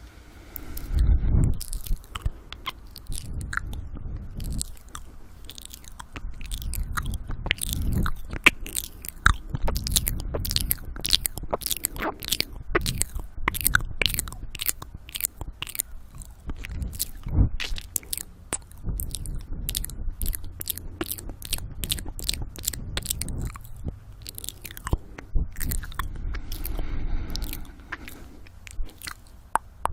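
Close-miked ASMR mouth sounds: many quick wet clicks and smacks of lips and tongue, densest through the middle, with heavy breathing on the microphone.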